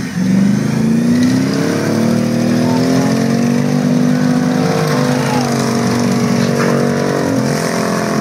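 Rear-wheel-drive demolition derby cars' engines revving hard, the pitch rising and falling as they accelerate and back off.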